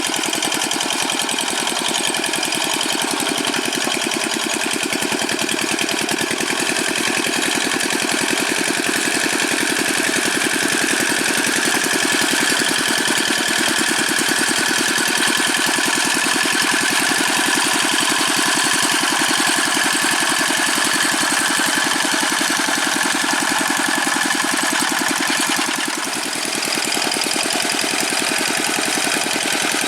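Old Dongfeng single-cylinder diesel engine of a Quick G600 hand tractor running steadily under load with a fast, even chugging beat, easing briefly near the end.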